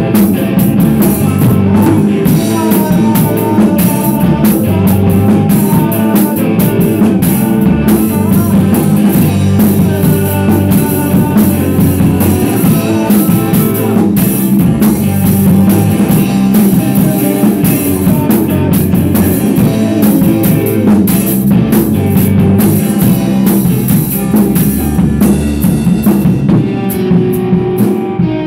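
A rock band playing loudly in rehearsal: electric guitar over a drum kit, with a steady beat.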